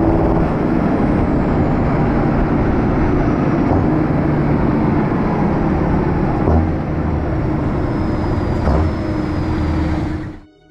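Heavy farm machinery engine running steadily, with a faint high whine slowly falling in pitch and a couple of knocks in the second half. It cuts off suddenly near the end.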